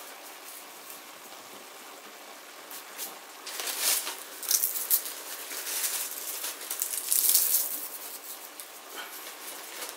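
Dried basil being crushed and crumbled between the fingers over a pot of vegetables: dry, crackly rustling in uneven bursts, starting a few seconds in and stopping shortly before the end.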